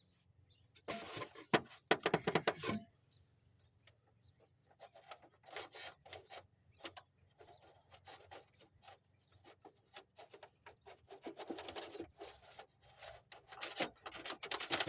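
Handling noise of hands working on the truck: rubbing and scraping in a loud burst early, then many small irregular clicks and rustles that grow busier near the end.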